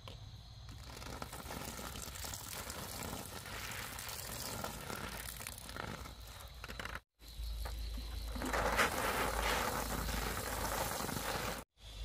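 Water poured from a watering can into a planting hole in plastic mulch, splashing and trickling onto loose soil and plastic. The sound breaks off abruptly twice, and the later pour is louder.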